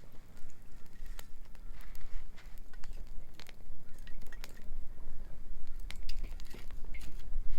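Wood bonfire crackling, with irregular sharp pops and snaps over a steady low rumble.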